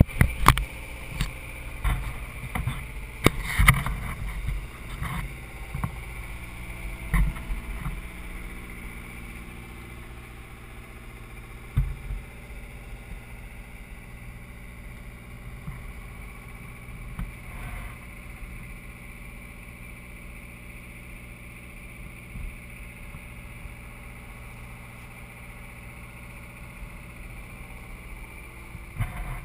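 A boat's engine running with a steady hum and a steady high whine above it. Knocks and bumps of the camera being handled come mostly in the first several seconds, with one more near the middle.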